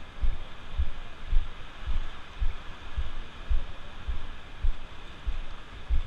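Walking footsteps on wet beach sand, each step a dull thud jolting the camera, about twice a second, over a steady wash of Atlantic surf.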